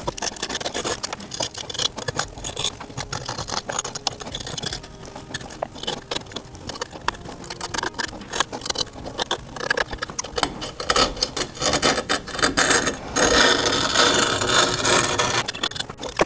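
A blade cutting and scraping through grip tape along the edge of a scooter deck: a run of small scratches and clicks, with a denser, louder stretch of scraping near the end.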